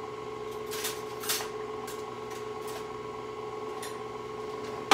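Stand mixer running at its lowest speed with a steady motor hum, ready for the dry ingredients to be added. A sharp knock comes right at the end.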